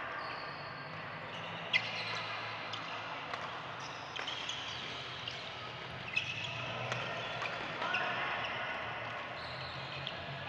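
Badminton play in a large hall: shoes squeaking on the wooden court floor several times, and scattered sharp racket-on-shuttlecock hits, the loudest about two seconds in, over the steady din of the hall.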